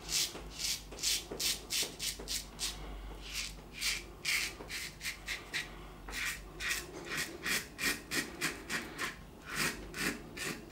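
Wilkinson Sword TTO double-edge safety razor with a Dorco Titan blade scraping stubble through shaving cream, against the grain. It goes in quick short strokes, about three a second.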